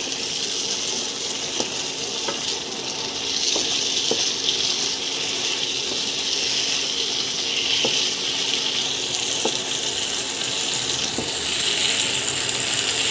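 Chicken and vegetables sizzling in a pan as they are stirred into a cornflour gravy: a steady hiss with a few faint taps of the spoon against the pan.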